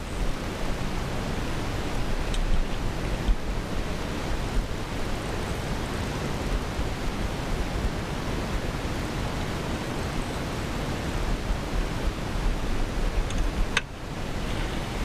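Steady rushing of wind over the microphone, with low buffeting gusts. It dips briefly near the end.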